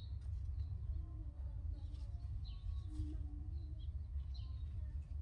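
Small birds chirping repeatedly in the background, short high chirps every half second or so, over a steady low rumble.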